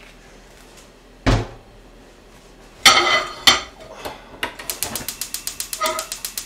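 Gas stove burner's spark igniter clicking rapidly, about eight clicks a second for roughly two seconds, as the knob is turned to light the burner. Before it come a dull thump and two sharp metal knocks from the frying pan and oil bottle being handled.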